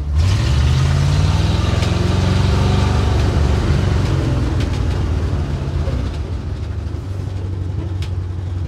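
Ford 332 Y-block V8 of a 1962 Ford C750 cabover truck revving up under load, heard from inside the cab, then easing off about six seconds in. The engine is pulling against a rear brake that won't release.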